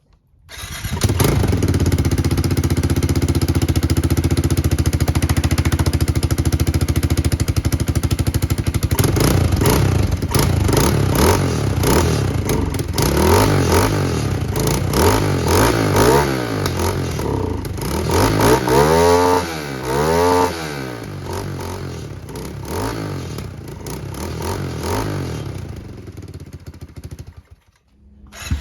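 Kawasaki KLX110 single-cylinder four-stroke engine exhaust note: idling steadily for about nine seconds, then revved in a series of blips, with two quick rises and falls about two-thirds of the way through, before the sound cuts off near the end.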